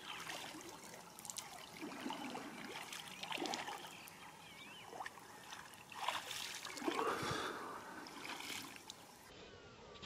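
Lake water sloshing, trickling and lightly splashing around the legs of people wading knee-deep, in small irregular bursts.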